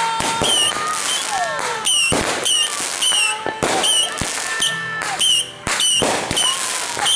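Aerial fireworks bursting in quick succession: many sharp bangs, several a second, with whistles gliding in pitch between them.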